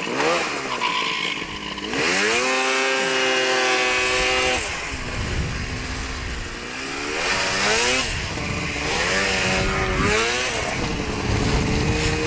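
Snowmobile engine revving under way: it climbs to a steady high pitch about two seconds in, holds it for a couple of seconds, eases off, then surges up and down again in a few shorter bursts, over a steady rush of wind on the microphone.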